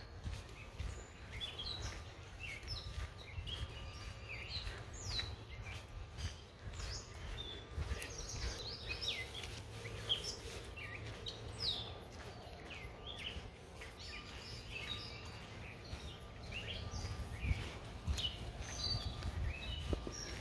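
Several songbirds chirping and singing, many short calls overlapping one another, over a steady low rumble.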